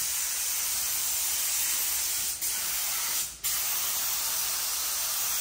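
Air-fed paint spray gun hissing steadily as it sprays primer onto a car bonnet, cutting out briefly twice, about two and a half and three and a half seconds in.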